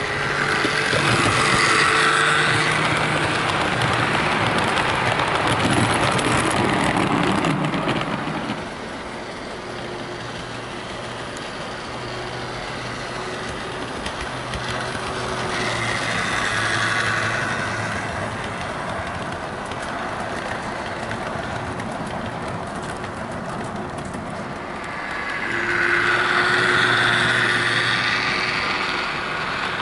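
Heljan OO gauge Class 17 Clayton model diesel locomotive running with six coaches: a steady electric motor hum and whine over the rattle of wheels on the track. It grows louder each time the train comes close: at the start, briefly about halfway, and again near the end. The motor in this model is noisy.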